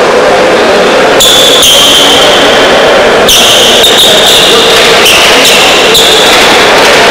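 Loud, steady noise of a large indoor frontón court, with several high-pitched squeaks from about a second in and a few light knocks.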